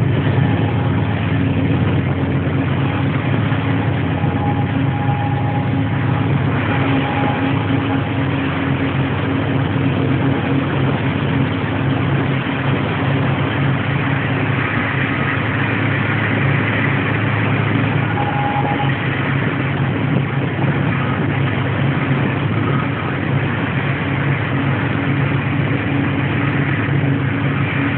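Diesel locomotive engine running steadily, heard from inside the cab as the locomotive rolls through the yard.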